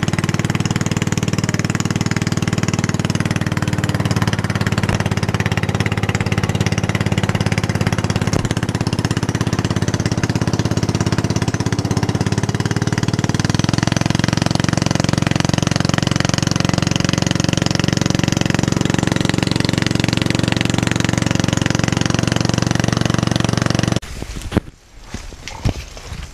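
A small outrigger boat's engine running steadily at cruising speed. It stops abruptly about two seconds before the end, leaving only faint, scattered sounds.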